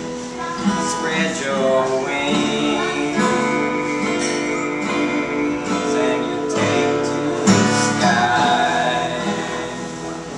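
Acoustic guitar played solo, strummed chords with picked melody notes over a regular pulse of bass notes.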